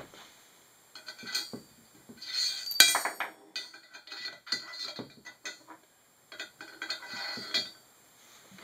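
Metal bolts and nuts clinking and scraping against an aluminium extrusion as they are fitted into its slot by hand: a string of irregular small clinks, with the loudest clank about three seconds in.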